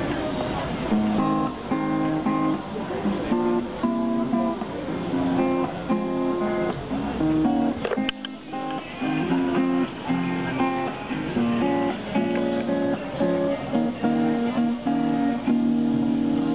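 Acoustic guitar played solo, a run of strummed chords and picked notes that change every half second or so.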